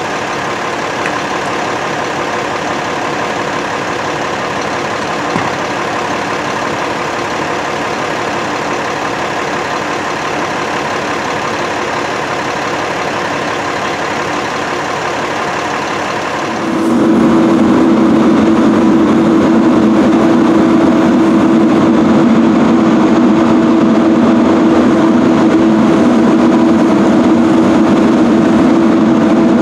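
Fire engine's diesel engine running steadily. About halfway through it becomes louder, with a strong low drone.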